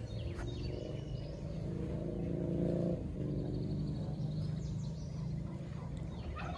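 A steady motor hum, growing louder and then shifting in pitch about three seconds in, over low outdoor rumble.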